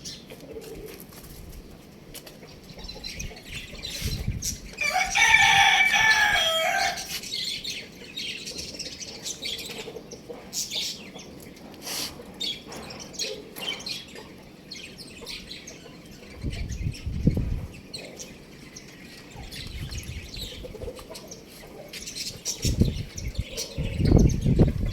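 A rooster crows once, about five seconds in, in a loud call lasting about two seconds. Scattered clicks and a few low thumps sound around it.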